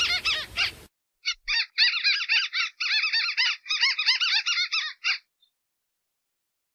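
White-browed crake call used as a bird lure: a fast chattering series of short rising-and-falling notes. The series breaks off just under a second in, then after a brief pause a second chattering run lasts about four seconds.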